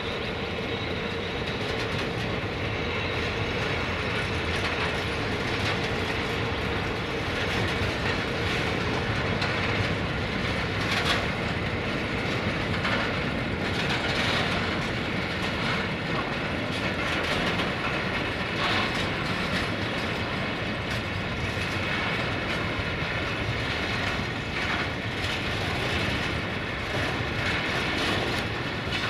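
Freight train tank wagons rolling past: a steady rumble of steel wheels on rail with scattered clicks as the wheels cross rail joints. A faint thin tone fades out in the first several seconds.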